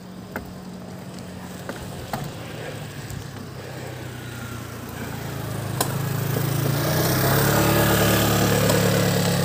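A small engine running with a steady hum that grows steadily louder from about halfway through, with a few light knocks in the first seconds.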